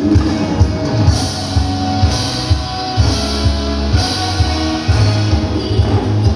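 Loud rock-style music with drums beating steadily, about two strokes a second, and cymbal-like crashes roughly once a second, typical of nanta drumming played along to a backing track.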